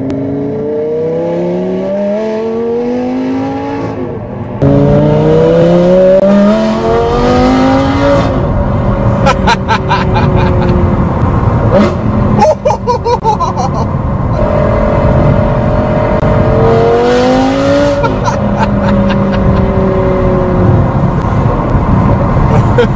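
Lamborghini Gallardo V10 with an Armytrix exhaust accelerating hard through the gears. The pitch climbs and drops at each shift, and there are bursts of crackles and pops between pulls.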